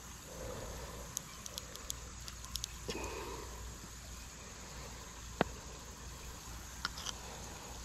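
Small metal clicks and taps of a hook remover working at a fishing hook in a turtle's mouth, with one sharper click about five seconds in, over a low steady rumble.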